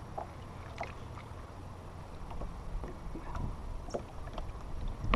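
Steady low rumble of wind and water around a small fishing boat, with a few faint scattered clicks.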